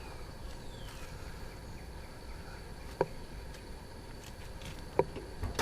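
Car hood latch being worked on a 2008 Scion xB: two sharp metallic clicks about two seconds apart, then a low thump at the very end as the hood starts to come down, over a faint steady outdoor background.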